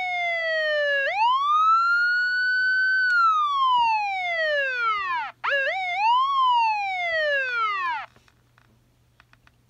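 Federal Signal Interceptor electronic siren sounding a wail. The tone falls, sweeps up about a second in and holds, then falls again. After a brief break about five seconds in, it climbs in a few short steps and winds down, cutting off about eight seconds in.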